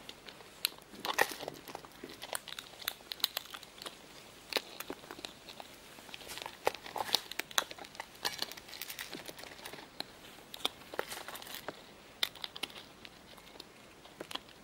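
Scarlet macaw cracking and crunching seeds from a bowl with its beak: irregular sharp cracks and crackles.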